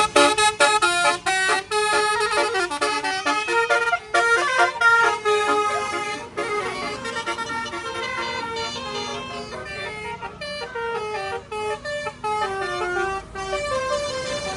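A tour bus's multi-note musical horn playing a tune. It starts with a quick run of short stepped notes and moves into slower, longer held notes near the end.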